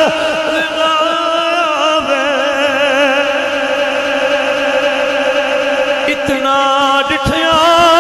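A man singing long, drawn-out notes of a Punjabi Sufi verse, his voice wavering in a slow vibrato and carried by a microphone. The held line breaks about six seconds in, then a new long note begins.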